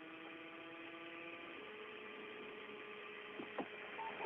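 Open air-to-ground radio channel with no one talking: steady hiss and a hum of several steady tones that steps up in pitch about a second and a half in, with a few faint clicks near the end.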